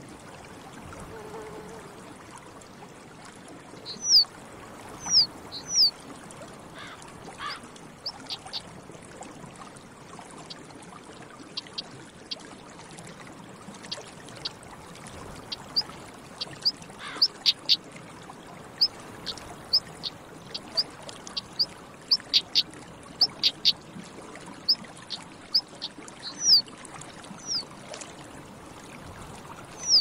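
European stonechat calling: a few short downward-slurred whistles, then a long run of quick, sharp clicking notes, over a steady rushing background hiss.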